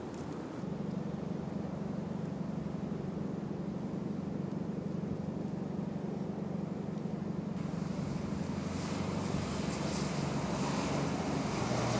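Vehicle engine idling nearby, a steady low hum; a faint hiss grows in the second half.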